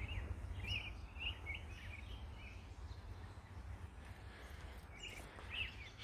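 Faint short bird calls, a cluster in the first second and a couple more near the end, over a steady low background rumble.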